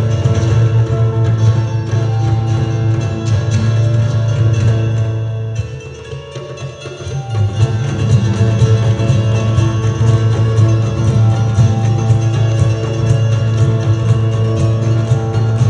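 A live instrumental ensemble of rabab, guitar, keyboard and hand drum playing through the stage sound system, with plucked strings over a strong, steady bass. The music drops quieter for a moment about six seconds in, then comes back at full level.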